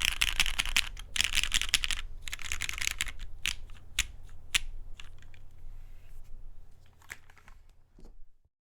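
Typing on a Matrix 8XV 2.0 Add custom mechanical keyboard with lubed retooled Cherry MX Black linear switches, an aluminium plate and GMK keycaps. Fast, dense typing for about three seconds, then it slows to scattered single keystrokes that thin out and stop near the end.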